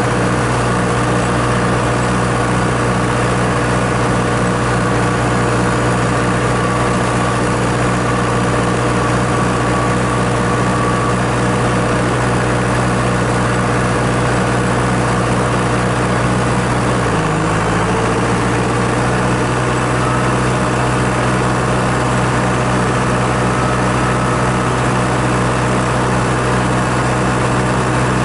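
John Deere 6400 tractor's four-cylinder diesel running steadily under load while pulling a round baler through the windrow. About 17 seconds in, the engine pitch dips briefly and then recovers.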